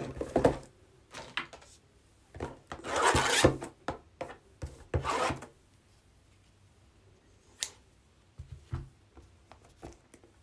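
Trading cards and card packs being handled: two longer rasping rubs, about three and five seconds in, among short scrapes and clicks.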